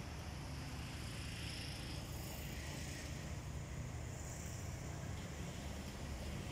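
Distant Alsthom diesel-electric locomotive running as it approaches, a steady low rumble with a light hiss.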